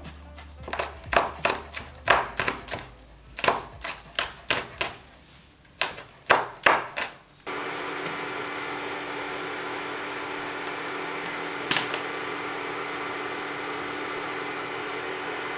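Knife chopping garlic on a wooden cutting board: quick sharp chops in short runs for about seven seconds. Then an abrupt switch to a steady hum, with a single click partway through.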